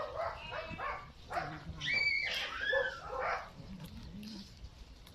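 Several short, high animal cries in a row, whining or mewing, their pitch bending up and down; the loudest comes about two seconds in.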